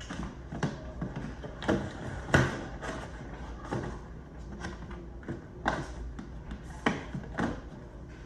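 Unboxing handling: packaging and boxed items being moved and set down, with irregular knocks, taps and rustles, the loudest about two and a half seconds in.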